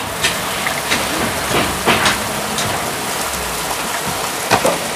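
Steady even hiss of outdoor background noise, with a few short light clicks and rustles scattered through it, the clearest pair a little after four seconds in.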